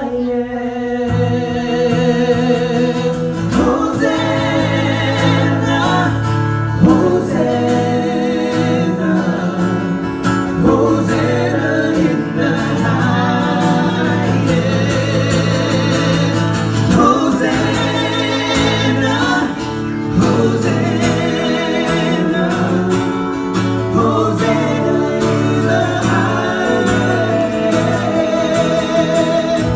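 Live gospel-style worship music: voices singing over a band. Low instrumental notes come in about a second in, under what was near-unaccompanied singing.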